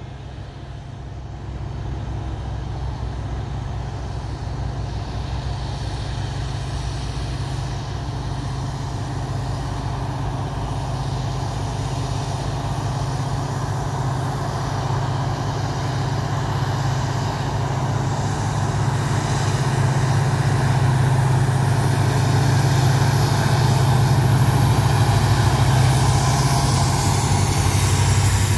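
A freight train's locomotives approaching: a steady low engine drone that grows gradually louder, with rail and wheel noise rising near the end as the locomotives come by.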